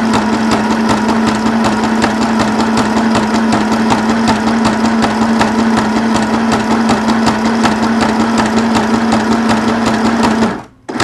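Janome Sew Mini sewing machine running steadily while sewing a zigzag stitch through paper card: a constant motor hum with rapid, even needle clatter. It stops abruptly near the end as the stitching halts just short of the corner.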